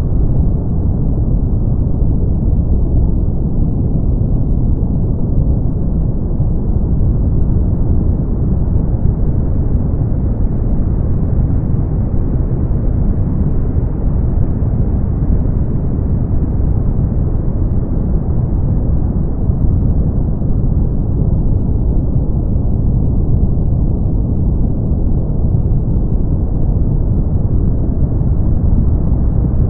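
Steady brown noise: a deep, even rushing hiss weighted to the low end, with a slow, gentle swell in its brightness.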